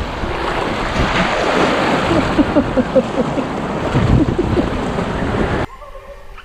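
Rushing, splashing water as inflatable tubes ride down a water-park river ride, with a cluster of short squeaks in the middle. The rushing cuts off abruptly near the end, leaving a much quieter background.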